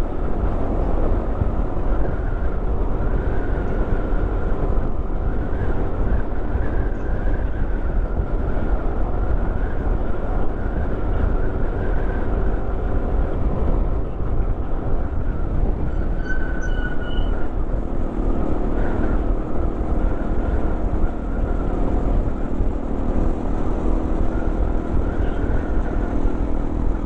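A motorcycle running steadily at road speed, its engine under a constant heavy rush of wind on the microphone. A brief high tone sounds about sixteen seconds in.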